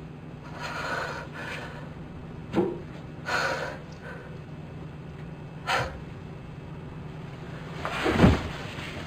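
A man breathing heavily, letting out a few long exhales, with a couple of light knocks of movement, then a heavy thud near the end as he drops down onto a sofa.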